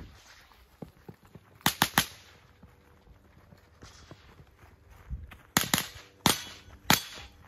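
Shots from a .22 LR rimfire competition rifle (a custom Battle Arms mini rifle firing Eley Contact ammunition): a fast string of three about two seconds in, then four more shots in quick succession near the end.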